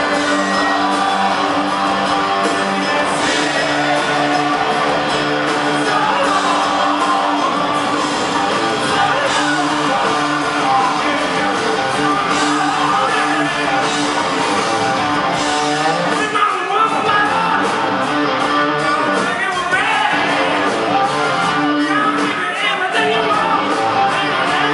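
Live hard rock band playing in a hall: distorted electric guitars, bass and drums, with a vocalist singing and shouting at times over them.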